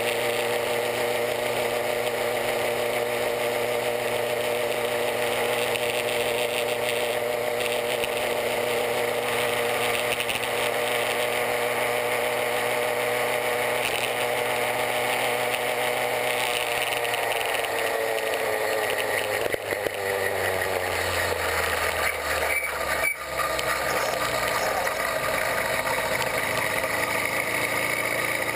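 Chinese 66/80cc two-stroke bicycle kit engine running under way. Its pitch holds steady, falls from a little past halfway as the bike slows, and rises again near the end as it picks up speed.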